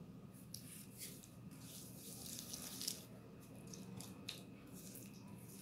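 Silicone spatula mashing and stirring soft cheese with sugar in a glass bowl: faint, irregular squishing and scraping strokes.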